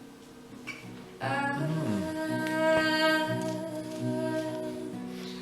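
Live song with acoustic guitar accompaniment: after a quieter first second, a woman's voice comes in and holds one long sung note over the guitar.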